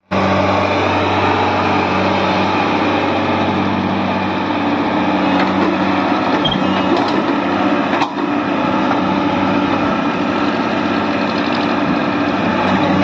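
Tata Hitachi 110 crawler excavator's diesel engine running steadily as the machine works, with a single sharp knock about eight seconds in.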